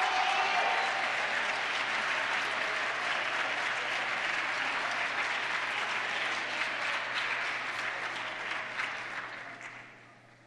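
A congregation applauding, a dense even clapping that thins and dies away near the end.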